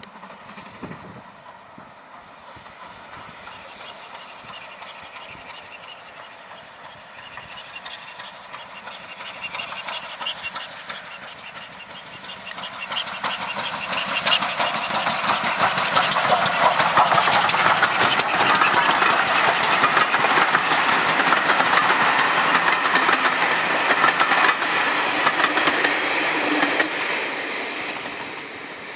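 GWR 'Castle' class 4-6-0 steam locomotive working a passenger train past. Its exhaust and the rattle of the wheels grow louder from about halfway through, are loudest as the engine and coaches go by, then ease off near the end.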